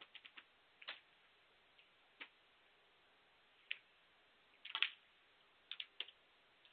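Sparse light clicks over a quiet background. The loudest, a short cluster of clicks about three-quarters of the way through, is the snooker cue tip striking the cue ball; a few more clicks follow soon after.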